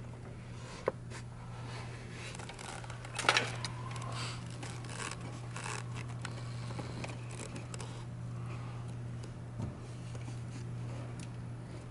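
Hands working up under a car's dashboard: rustling and small plastic clicks and clatters. There is a sharp click about a second in and a louder clatter about three seconds in, over a steady low hum.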